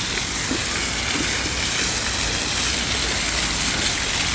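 Steady rush of spraying and falling water from the fountains and sprays of a water playground.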